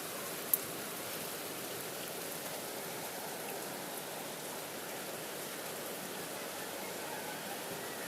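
Steady rain falling, with a single sharp tap about half a second in.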